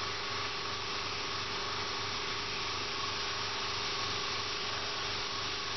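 Airbrush hissing steadily as it sprays a thin line of paint, over a steady low hum.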